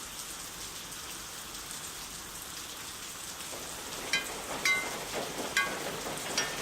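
Cartoon sound effect of steady rain hissing. About four seconds in, short high squeaky chirps start to repeat, about two a second.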